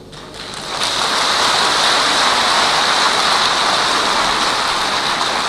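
Large audience clapping in an auditorium: applause that builds up over about the first second and then holds steady.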